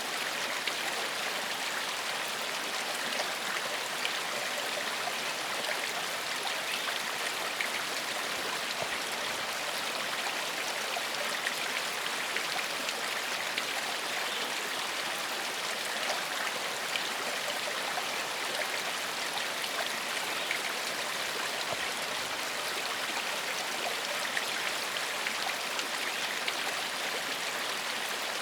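Shallow forest stream flowing steadily over stones, a continuous rushing hiss with small splashes and gurgles.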